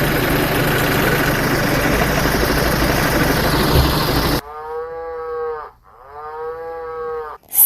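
A loud, even hiss for the first four seconds or so that cuts off suddenly, then a toy cow's recorded moo, given twice as two long, steady calls.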